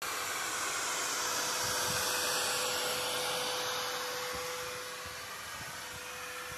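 Ruwac Flood Pro industrial wet extraction vacuum running steadily: a loud, even rush of air with a constant hum, easing slightly after about five seconds. It is sucking standing water out of a flooded basement through its hose.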